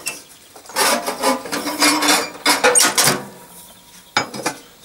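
Rustling and clattering as the steel rear suspension arm of a Panhard Dyna Junior is picked up and handled, then a single sharp knock near the end as it is set down on the bench vise.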